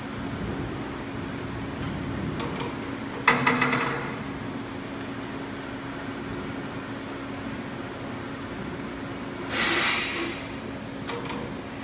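Automatic beeswax comb foundation machine running with a steady hum. A sharp metallic clatter comes about three seconds in, and a short hissing rush and a lighter clatter come near the end.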